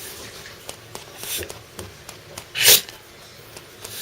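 Kai Ken dog sneezing twice, a softer sneeze about a second in and a loud one past halfway. The sneezing is set off by irritation from onion.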